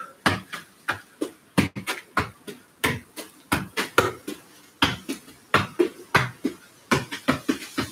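Football being juggled in keepy-ups: the ball is struck again and again by foot and thigh, with about three sharp touches a second.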